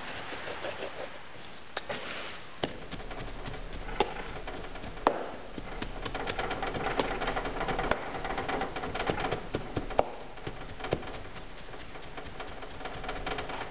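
Damp moulding sand being worked by hand and packed into a wooden casting flask with a wooden hand rammer: rustling and scraping of sand, with irregular sharp knocks as the rammer strikes.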